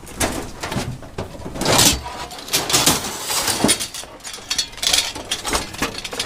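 Scrap metal being handled and sorted: a run of irregular clanks, knocks and scrapes as pieces of junk are moved and tossed.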